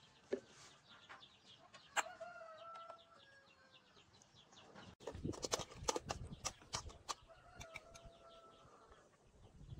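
A chicken calls twice in the background, each call drawn out for about a second and dropping a little at the end. Sharp clinks and knocks of utensils on containers come through, with a quick cluster of them in the middle.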